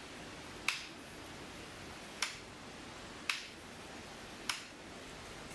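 Radio transmitter's rate toggle switch clicking four times, flipped between 80% and 100% rates, over a steady low hiss.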